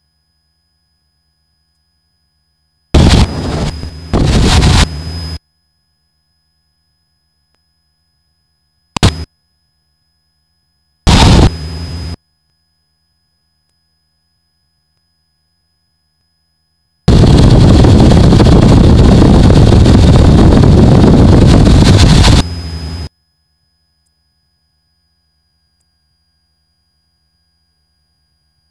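Headset intercom feed in a Cessna 172S, silent between abrupt, clipped bursts of engine and wind noise as the microphone's voice-activated squelch opens and shuts. There are three short bursts in the first dozen seconds, then a long one of about six seconds.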